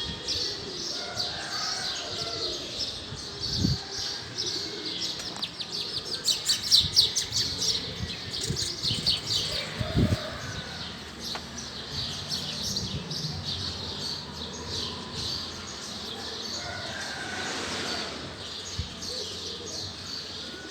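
Small birds chirping, with many short, high chirps overlapping throughout and a dense, loud flurry in the middle. There are a couple of brief low thumps.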